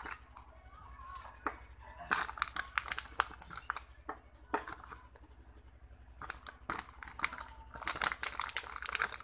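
Small plastic medicine vials being handled and set down one by one on a table: scattered clicks and taps mixed with plastic packaging crinkling, over a low steady hum.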